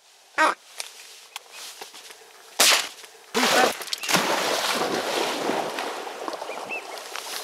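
Shotgun fired at ducks over the marsh: a sharp bang about two and a half seconds in and another loud report under a second later, followed by several seconds of rough noise. Just before them, one short blast on a duck call.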